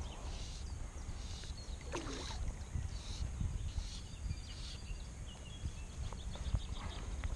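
Water lapping and sloshing against a float tube, with a low rumble of wind on the microphone and faint bird chirps over it.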